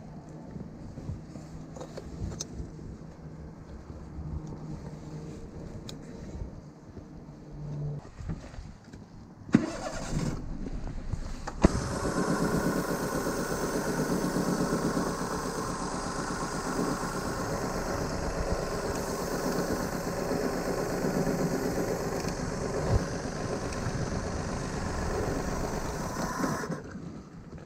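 Daihatsu Move L150S three-cylinder 660 cc engine started a little before halfway through, after a click, then running steadily at idle until it is switched off near the end.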